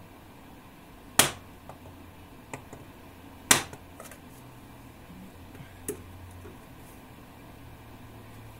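Mallet striking a homemade PVC pipe install tool to drive a new front pump oil seal into a ZF automatic transmission: two hard knocks about two seconds apart, with a couple of lighter clicks between and after.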